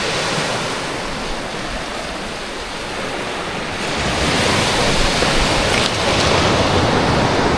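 Ocean surf breaking on a beach: a steady rush of waves that swells louder about halfway through.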